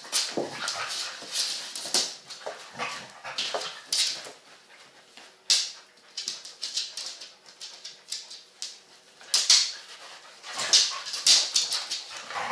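Two dogs play-fighting on a dog bed: irregular short dog vocalisations and scuffling, with the loudest bursts in the last third.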